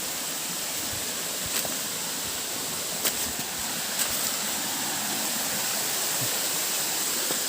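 Steady rush of flowing water from a waterfall stream, with a few faint clicks.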